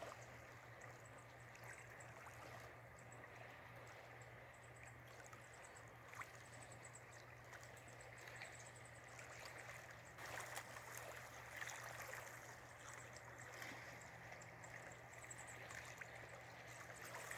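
Near silence: faint outdoor ambience with a steady low hum and soft, light rustling.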